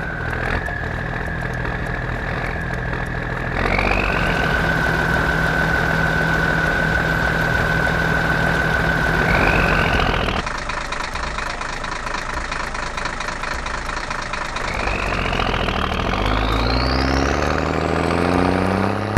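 Truck engine sound effect running steadily with a high whine over it. It grows louder about three and a half seconds in, drops back near ten seconds, and revs up with rising pitch over the last few seconds.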